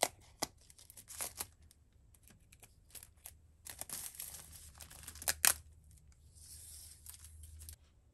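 Clear plastic wrapping being torn and peeled off an Apple Pencil box, a run of sharp crackles and rips. Near the end it gives way to a softer, steady rustle.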